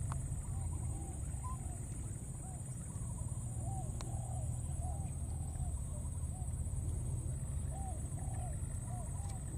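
Faint, short animal calls that each rise and fall in pitch, repeated irregularly, over a steady high-pitched whine and a low rumble, with a few sharp clicks.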